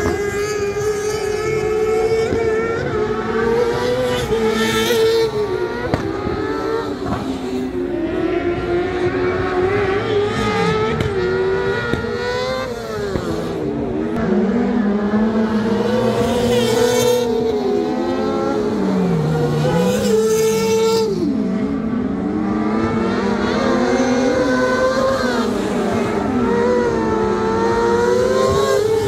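Rallycross race car engines revving hard around the circuit: the pitch climbs and drops again and again as the cars change gear and brake for corners, with one engine rising briefly over the rest several times.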